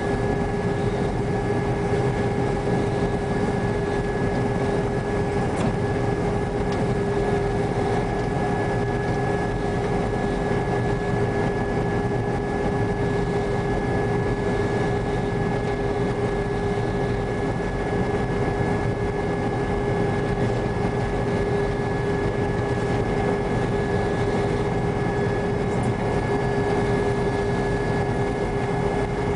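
New Holland TR95 combine running steadily while picking up a wheat swath, heard from inside the cab: a constant machine drone with a few steady whining tones over a low rumble.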